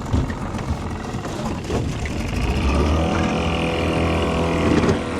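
Motorboat engine running steadily under way, with a rushing noise over it. Its steady hum stands out more clearly from about three seconds in.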